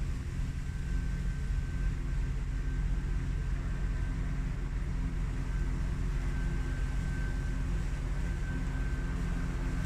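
Ryobi 40V brushless cordless push lawn mower running as it is pushed across the grass: a thin steady motor-and-blade whine over a steady low rumble.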